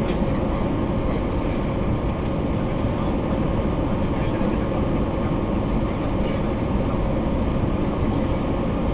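Steady cabin roar of an Airbus A320 on landing approach, with engine and airflow noise heard from a window seat beside the engine and a faint steady hum running through it.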